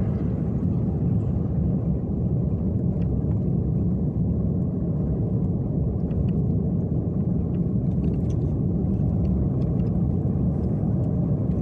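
Steady low rumble of a car driving at speed, tyre and engine noise heard from inside the cabin.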